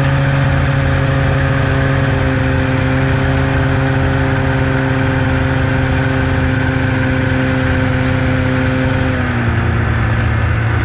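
2006 Polaris Fusion 600 snowmobile's two-stroke twin engine running at a steady speed while riding. Its pitch drops slightly about nine seconds in.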